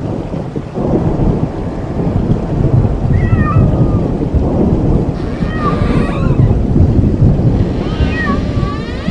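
Cat meows, three short calls that rise and fall in pitch, over a loud, steady low rumble like thunder.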